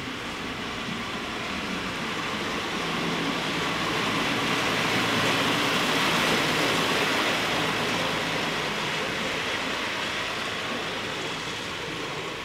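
Passenger train rolling past close by: a rumble of wheels on rails that swells to a peak about halfway through and then fades, with a low steady hum underneath.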